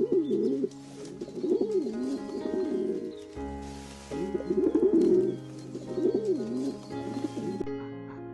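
A bird calling in four low, wavering phrases, over background music.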